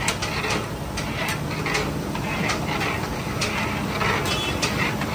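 Busy street ambience: a steady low rumble with irregular sharp clinks and clatters.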